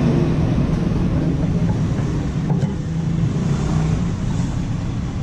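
Steady low drone of an engine running nearby, with a few faint clicks as the timing gears are handled.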